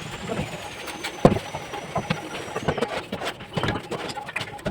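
Bricklaying work: scattered taps and knocks of a trowel on bricks and mortar, the loudest about a second in. A faint high whine runs through the first half and slowly falls in pitch.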